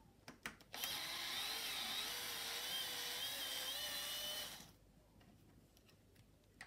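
Small cordless electric screwdriver running for a few seconds, backing a screw out of a stroller's brake pedal housing, its whine wavering slightly in pitch before it stops. A few light clicks come just before it starts.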